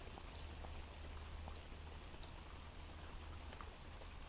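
Recorded rain ambience: a soft, steady patter of raindrops with faint scattered drip ticks, over a low steady hum.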